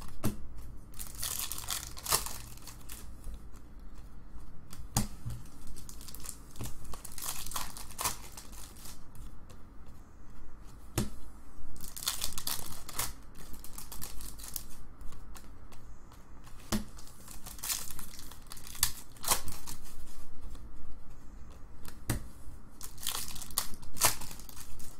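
Trading card pack wrappers being torn open and crinkled, and cards handled and shuffled between the hands, in short bursts of rustling a few seconds apart.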